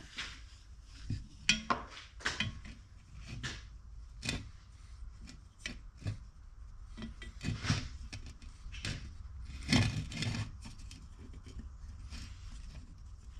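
Hands working on a small engine's recoil pull-start assembly and its new starter rope: irregular clicks, taps and knocks of the parts being handled, over light rubbing.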